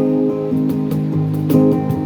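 Acoustic guitar strumming a few chords and letting them ring.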